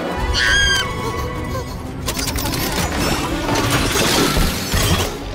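Cartoon film soundtrack: music mixed with crashing and shattering sound effects, with a short high squeal about half a second in.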